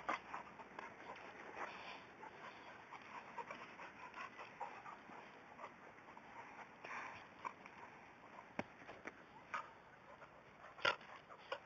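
A young boxer and another dog play-fighting, heard faintly: scuffling and short dog noises throughout, with a sharper, louder sound near the end.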